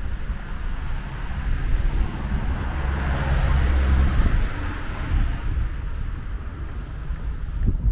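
Street ambience: a passing car's tyre noise swells about three seconds in and fades away, over a steady low rumble of wind on the microphone.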